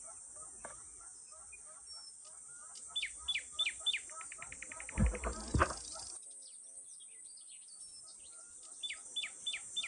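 Birds singing over a steady high insect drone: two runs of four or five clear falling whistles, each followed by a fast trill, about three seconds in and again near the end, with softer repeated chirps between. Two dull low thumps about five seconds in.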